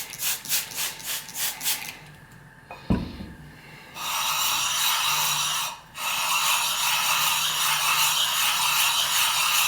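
Suehiro whetstone's 1000-grit side being rubbed wet on a flattening plate to lap it flat. First a quick run of short scraping strokes, then a single knock, then long continuous gritty scrubbing with one brief pause.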